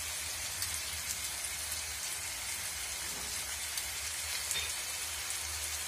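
Bitter gourd rings and onions sizzling in hot oil in a frying pan, a steady crackling hiss over a low hum.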